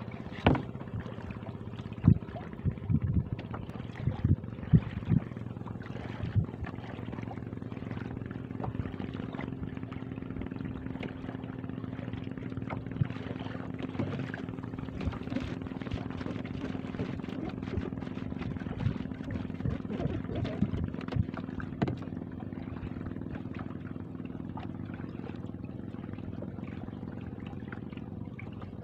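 Water being bailed out of a small wooden boat with a plastic jerrycan: pouring and trickling, with sharp knocks of the jug against the hull in the first several seconds. A steady low hum runs beneath.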